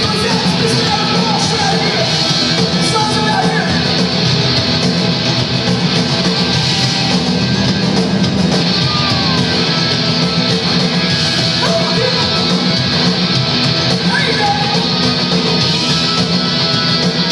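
A hardcore punk band playing live: loud, dense electric guitars and drums with shouted vocals, heard from within the crowd.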